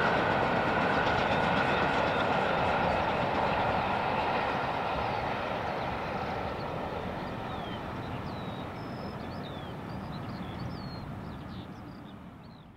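Steam-hauled train behind LNER A3 Pacific 60103 Flying Scotsman receding, its rolling rumble slowly fading away. Small birds chirp over it from about halfway through.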